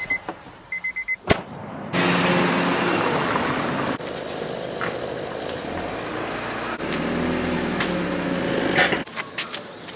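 Two short high-pitched beeps of a car's warning chime and a door shutting, then an eighth-generation Honda Civic sedan's engine running as the car drives slowly over paving stones, its note rising and falling briefly about 7 s in.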